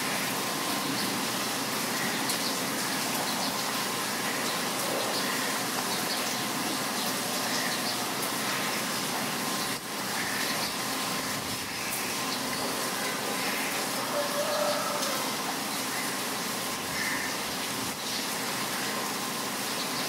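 Heavy rain falling steadily, with short bird chirps heard now and then over it.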